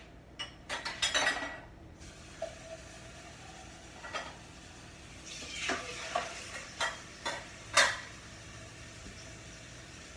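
Kitchen handling noises off to the side: a quick cluster of clatters about a second in, then a string of separate knocks and clinks of utensils and dishes between about four and eight seconds, the loudest near the end.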